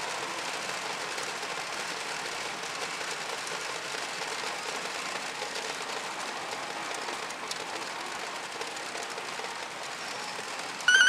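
Steady din of a pachinko parlor: machines running and their steel balls clattering without a break. Near the end a short, loud, high tone sounds.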